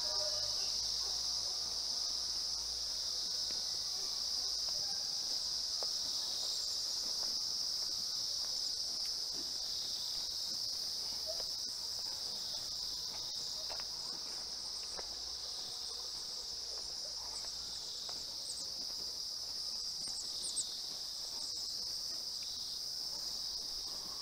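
A steady, high-pitched insect chorus, an unbroken shrill drone with a few faint ticks beneath it.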